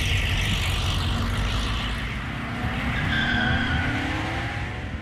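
Sound effect of a car skidding, a long tyre-squeal hiss, with an engine note rising in pitch through the second half.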